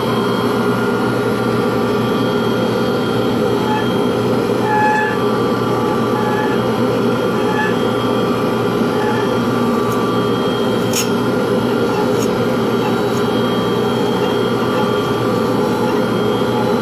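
Power-tool motor running steadily with a constant whirring hum, as a pen blank is being turned or sanded. Two faint ticks come about eleven and twelve seconds in.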